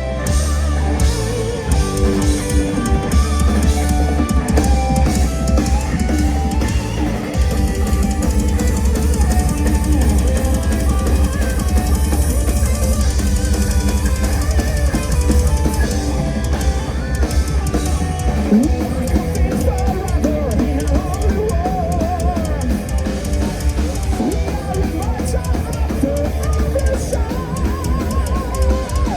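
Heavy metal band playing live: distorted electric guitars over a drum kit, the bass drum striking in a fast, dense run that comes in about a second in.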